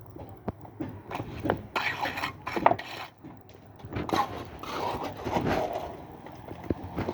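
Irregular scrapes and knocks of hand tools on concrete and masonry at building work.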